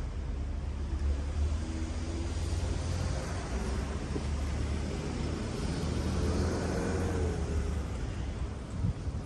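Wind buffeting the microphone, a steady low rumble, with a broader noise like a passing vehicle swelling around the middle and easing off near the end.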